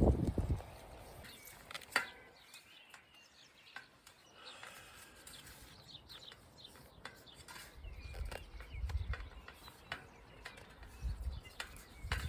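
Birds chirping faintly, with low gusts of wind rumbling on the microphone now and then, and a few scattered sharp clicks.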